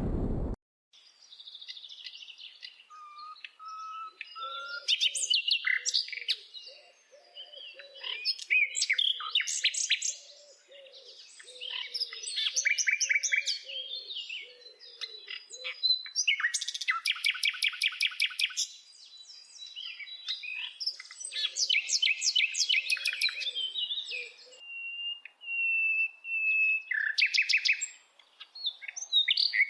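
A bird singing a long, varied song: phrases of fast trills and rapidly repeated notes alternating with short whistled notes, with a softer low warble underneath in places.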